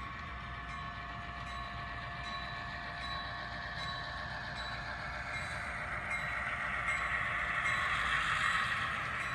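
HO scale model diesel train running, a steady engine hum with a few held tones that swells louder toward the end, with faint regular ticks a little more than once a second.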